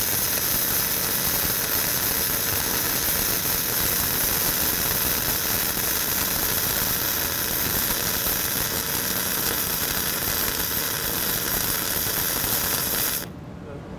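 Self-shielded flux-cored arc welding with 1/16-inch Innershield NR-233 wire, run vertical up: the arc gives a steady hiss and crackle that cuts off abruptly about thirteen seconds in as the weld is stopped.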